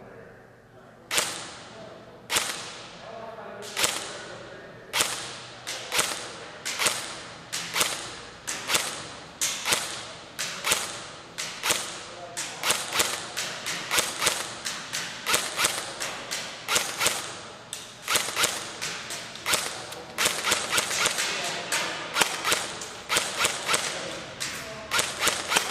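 Double Eagle M89 UMP electric airsoft gun firing single shots, one snap per pull, with a short echo after each. The shots start about a second in, spaced a little over a second apart, then come faster, around two a second.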